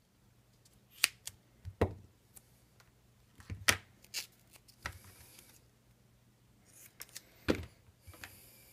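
Hand-handling noises with a roll of double-sided foam mounting tape and small parts on a workbench mat: scattered sharp clicks and taps, and two short rustling hisses, one in the middle and one near the end, over a low steady hum.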